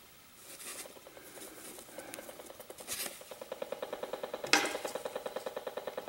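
Acoustimeter AM-10 RF meter's speaker ticking in a fast, even buzz of about ten pulses a second: the audio rendering of a Wi-Fi router's beacon signal, here reaching the meter through a shielding net. The ticking grows louder about two seconds in, and there is a brief rustle near the end.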